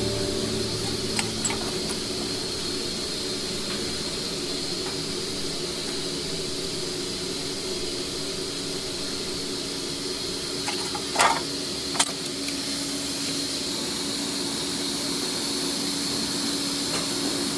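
Steady mechanical hum with a high hiss, with two short sharp clicks a little past the middle.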